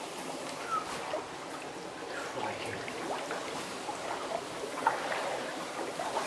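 Water in a flooded lead mine adit: steady splashing and trickling, with small drips and one sharper splash near the end.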